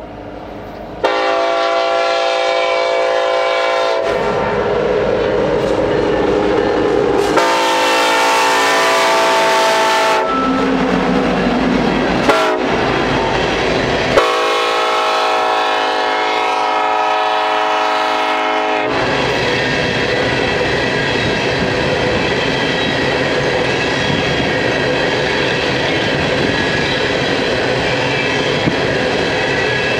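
A BNSF diesel locomotive's air horn sounds long blasts about a second in, around seven seconds and around fourteen seconds, with a brief sound between the last two, in the long-long-short-long pattern of a grade-crossing signal. After the horn stops, empty coal cars roll past with a steady rumble and the clickety-clack of wheels over rail joints.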